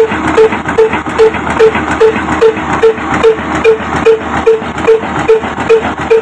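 Old horizontal single-cylinder stationary engine running at slow speed, chugging at an even beat of about two and a half firings a second, with mechanical clatter between the beats.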